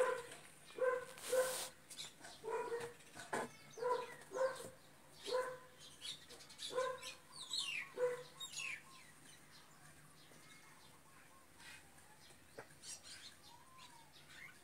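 A dog barking repeatedly in short barks, about a dozen over the first eight seconds, then stopping.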